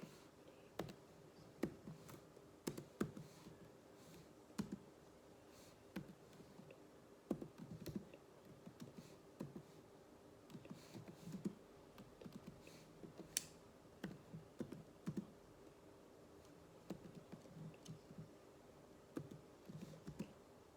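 Typing on a computer keyboard: faint, irregular keystrokes coming in short runs, with a low steady hum underneath.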